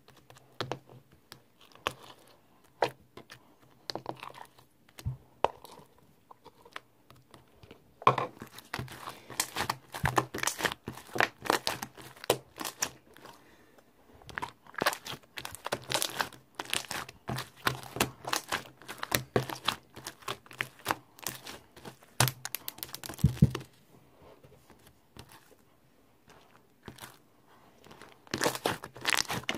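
Crinkling and crackling, like something being crumpled or torn, in dense spells of quick crackles separated by quieter stretches with only scattered clicks.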